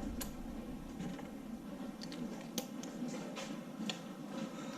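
Scattered light clicks and taps of hand tools being handled, a few spread out over the seconds, over a low background hum.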